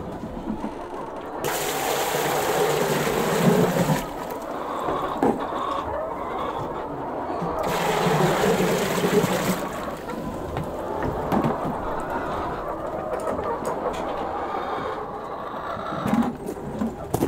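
Water poured from a bucket into a large plastic bucket used as a chicken waterer: two pours, one about a second and a half in lasting a couple of seconds, and another around eight seconds in. Hens cluck around it.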